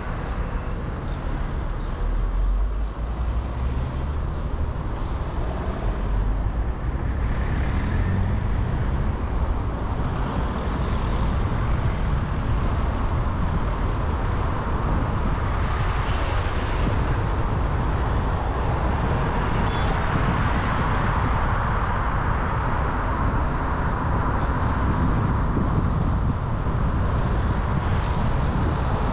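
Car driving with steady engine and road noise throughout. The engine note rises in the first few seconds as it speeds up.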